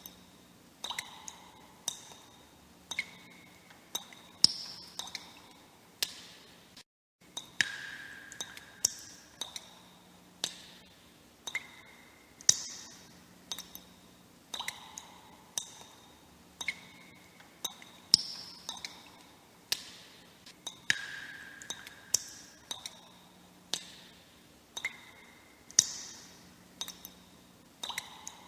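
Water droplets falling into water, each a sharp plink with a short ringing tone. The drops come at an uneven pace of about one or two a second and change pitch from drop to drop. There is a brief break of silence about seven seconds in.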